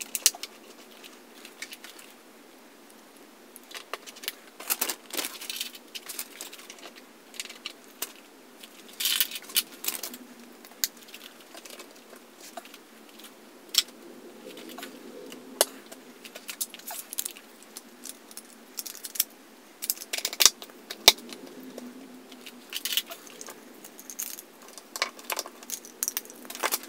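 Hard plastic toy playset parts being handled and fitted together: irregular clicks, clacks and rattles of plastic pieces snapping into place and knocking against each other.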